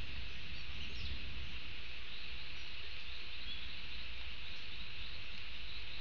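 Steady forest ambience: a constant hiss and low rumble, with a few faint bird chirps.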